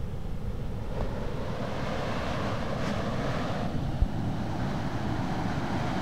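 Small creek pouring over a low concrete weir: a steady rush of falling water, with low wind rumble on the microphone and a brief thump about four seconds in.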